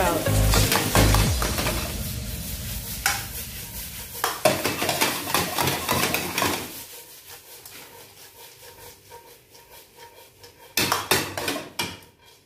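Metal spatula scraping and clattering against a wok as bean sprouts and minced chicken are tossed and stir-fried, with light sizzling. A quick run of clattering strokes comes near the end.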